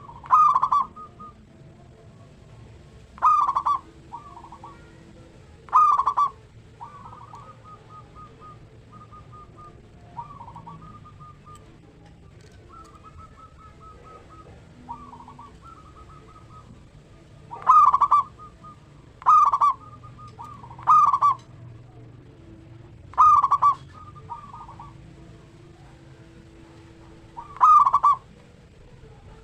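Zebra dove (perkutut) cooing: eight loud, short, clipped call notes spaced a few seconds apart, with softer stuttering runs of coo notes in between.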